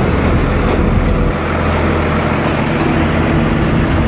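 Wooden river cargo boat's diesel engine running steadily as the boat pulls away from the bank, a low even thrum whose note shifts slightly about a second in.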